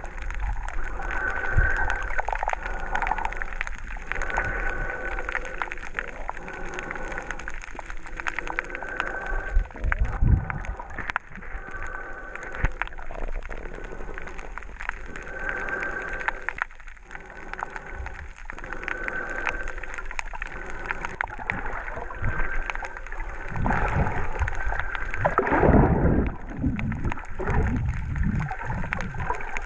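Muffled underwater sound picked up by a camera in a waterproof housing: bubbling and gurgling with many faint crackles and short high tones that recur every second or so. A louder rumbling burst of bubbles comes near the end.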